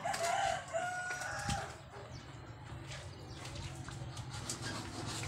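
A rooster crowing once, lasting about a second and a half at the start.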